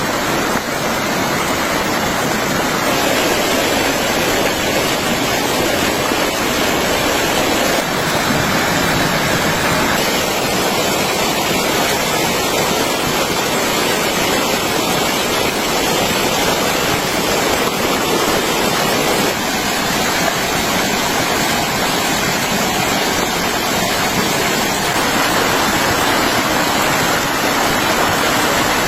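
Steady, loud rushing of water, like heavy rain or a fast stream, with abrupt small shifts in its tone a few times where the footage is cut.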